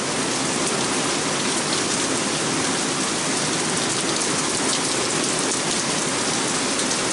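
Heavy rain falling in a steady downpour, an even hiss of drops hitting the surfaces.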